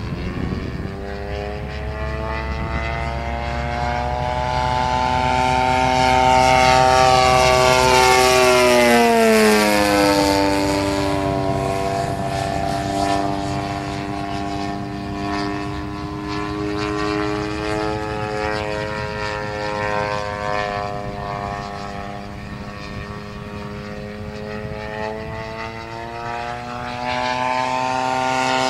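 Engine and propeller of a quarter-scale radio-controlled P-51 Mustang model in flight: a steady droning tone that swells and then drops in pitch as the plane passes by about nine seconds in, then grows louder and higher again near the end as it comes back.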